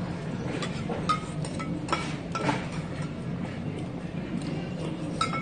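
Metal spoons clinking against stainless steel bowls during a meal: a few light, separate clinks with a short ring, over a steady low room hum.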